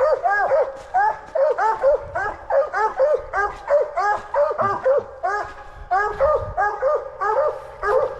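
Two coonhounds barking in a rapid, steady chop, about three barks a second, one voice a little lower than the other: hounds bawling treed at a tree.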